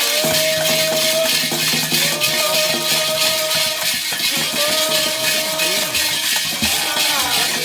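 Candomblé ritual music for Xangô: long sung phrases over the steady, rhythmic shaking of rattles.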